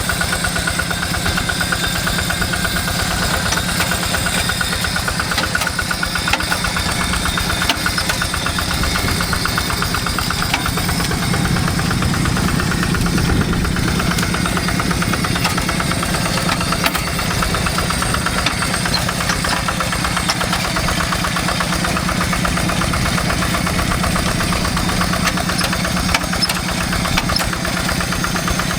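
Hand tractor's single-cylinder diesel engine chugging steadily under load as it pulls a plough through heavy paddy-field soil.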